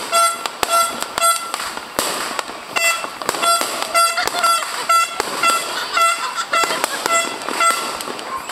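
Aerial fireworks crackling and banging in quick irregular cracks, with a horn tooting in short repeated blasts of the same pitch, about three a second, that pause briefly after the first second.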